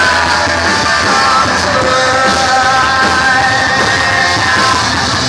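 Punk rock band playing loud and live, a steady wall of rock music with no break.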